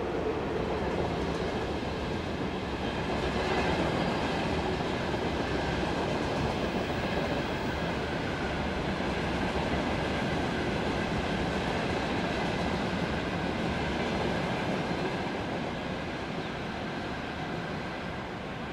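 Train running along the track at speed: a continuous, steady rolling noise with a faint steady whine.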